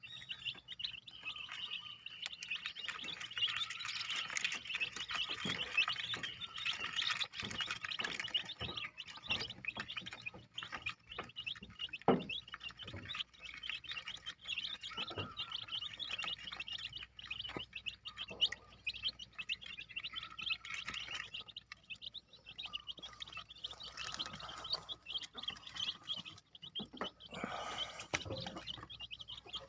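A brood of one- to two-week-old village chicken chicks peeping continuously, many high-pitched chirps overlapping. There are a few knocks, the loudest about twelve seconds in.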